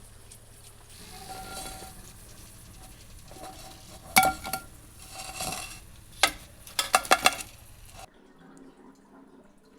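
Metal utensils knocking and clinking against a pan or dish over a faint frying sizzle, with several sharp strikes that ring briefly, a quick run of them about seven seconds in. The sound cuts off suddenly about eight seconds in.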